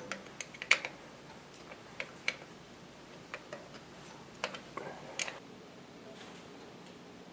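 Irregular light clicks and taps of hand tools and wire terminals as a short wire is being fitted, the sharpest click under a second in.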